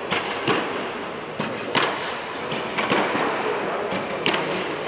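Recurve bows being shot and arrows hitting the target butts: several sharp snaps and thuds at uneven intervals, over a steady background hum.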